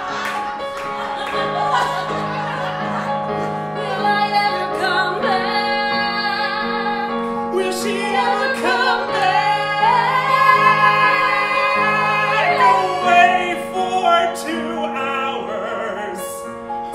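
A Yamaha electric keyboard playing steady sustained chords while a man sings long, held notes with vibrato over them, in an improvised comedy song.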